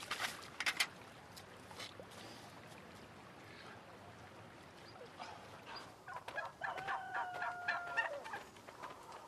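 A few splashes of water in the first second, then domestic fowl calling: a rapid string of short clucking notes from about six and a half to eight seconds in.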